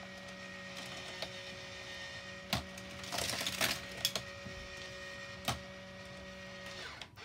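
Battery-powered motor of a Hot Wheels Volcano Escape toy playset running with a steady hum, driving its motorized lifters, while die-cast toy cars clack and rattle along the plastic track a few times. The motor hum cuts off near the end.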